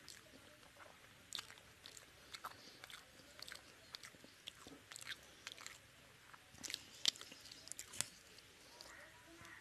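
Close-up mouth sounds of someone eating rice and fish curry by hand: chewing and smacking, with many short sharp clicks scattered irregularly throughout.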